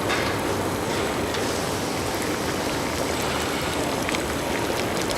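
Steady rushing, hissing water noise with a few faint ticks.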